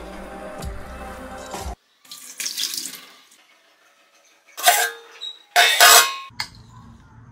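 Background music that cuts off about two seconds in, then water splashing into a stainless steel pan in short bursts, the two loudest near the end. After a click, a low steady hum sets in.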